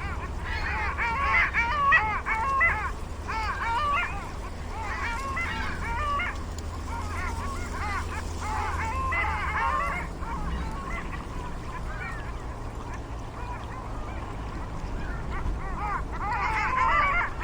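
A flock of waterfowl calling, many short calls overlapping in bursts a few seconds long, with a quieter lull in the middle. A steady low rumble runs underneath.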